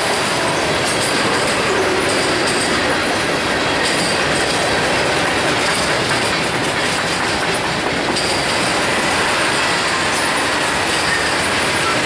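Freight cars of a Norfolk Southern mixed freight rolling past close by: covered hoppers and centerbeam flatcars loaded with lumber. Steel wheels on rail make a loud, steady rumble and clatter.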